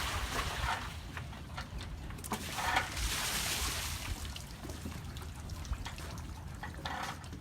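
Water trickling and splashing, swelling in two surges, the first near the start and the second about three seconds in.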